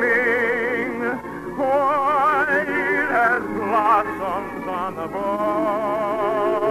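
Operatic singing with strong vibrato over orchestral accompaniment; the melody climbs to a high peak about four seconds in, then settles into a long held note.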